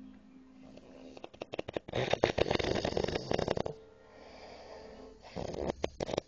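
A man snoring in a drunken sleep. A loud rattling snore starts about two seconds in and lasts under two seconds. It is followed by a quieter wheezing breath with a faint whistle, then a second rattling snore begins near the end.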